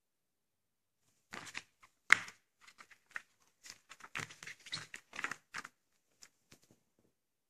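A folded paper leaflet being unfolded and smoothed flat by hand, crinkling and rustling in a quick series of short bursts, with a sharp crackle about two seconds in and a few faint ticks near the end.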